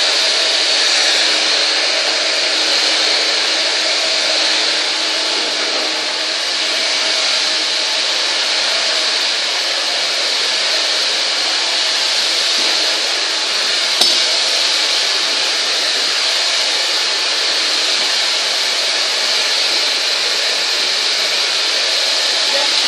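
Hand-held hair dryer blowing steadily at close range, a loud even rush of air with a faint low hum. A single sharp click about two-thirds of the way through.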